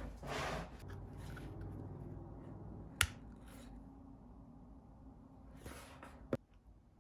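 Small handling noises: two brief rustles and two sharp clicks, the louder click about three seconds in, over a faint low hum.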